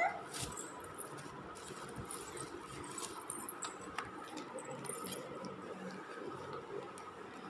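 Faint rustling and a few light clicks of a chocolate pack's packaging being handled and opened, with a brief high squeak at the very start.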